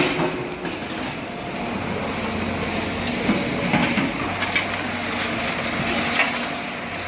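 A machine's steady low engine hum mixed with scattered knocks and crunching.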